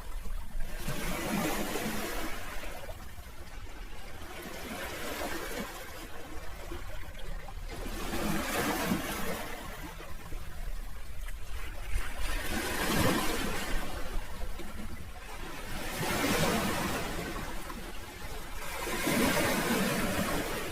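Sea waves washing onto the shore, swelling to a hiss and falling back every three to four seconds.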